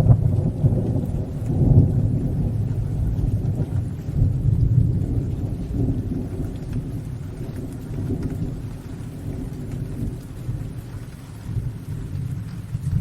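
A long roll of thunder that breaks in suddenly at the start, swells again about two seconds and about four seconds in, then slowly rumbles away, over steady rain.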